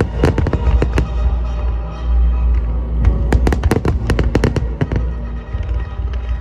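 Aerial fireworks shells bursting in rapid volleys with crackling reports, a dense cluster about halfway through, over a deep rumble and orchestral music from the show's loudspeakers.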